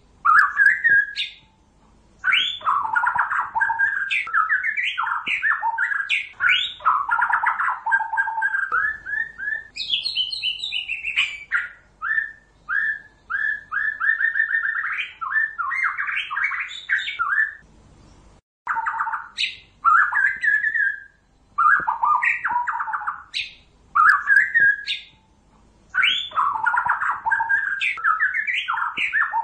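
White-rumped shama singing: varied whistled phrases and quick runs of repeated notes, broken now and then by short pauses. This is recorded song of the kind played as a lure call to trap shamas.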